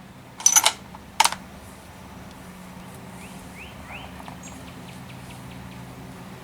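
Bolt of a Remington 700 ADL rifle being worked, a few sharp metallic clicks in the first second and a half, as a round is chambered. Later come a few faint rising chirps and light ticks over a low steady hum.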